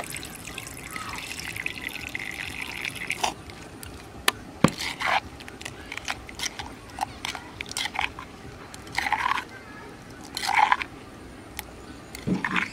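A thin stream of clear liquid poured into chili sauce in a stone mortar for about three seconds. Then a metal spoon stirs through the sauce, with short swishes and sharp clinks of metal against the stone.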